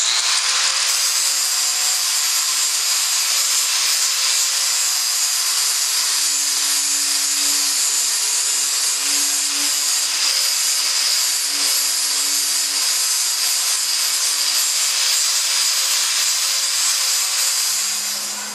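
Handheld angle grinder running and working against the steel rim of a 55-gallon drum: a loud, steady abrasive noise over a wavering motor hum. It starts suddenly and fades out near the end.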